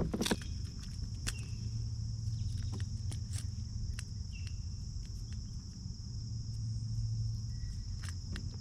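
Insects chirring steadily in one high band, with scattered light clicks and taps over it.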